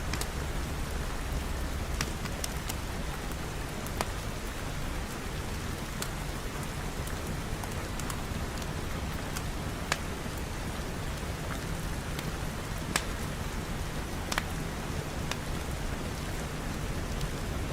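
Steady heavy rain falling, with a few sharp isolated pops or ticks scattered through it.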